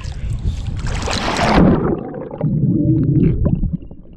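Splashing plunge into pool water, then muffled low bubbling and gurgling heard from below the surface, the high end cutting off suddenly under two seconds in.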